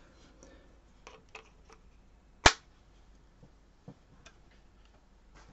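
Faint clicks and rustles of small objects being handled, with one sharp, loud click about two and a half seconds in.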